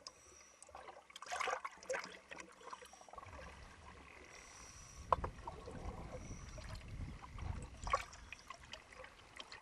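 Faint waterside ambience at a boat jetty: water lapping, with a few faint knocks and a low rumble through the middle.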